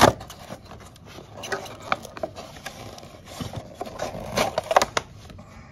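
Clear plastic blister packaging being pried and torn off its cardboard backing card, crackling and crinkling in a string of sharp snaps. There is a sharp snap right at the start, and the crackling is busiest about four to five seconds in.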